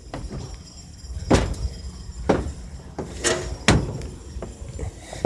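Handling noise from a phone being swung around: four or five sharp knocks and rubs on the microphone over a low steady rumble.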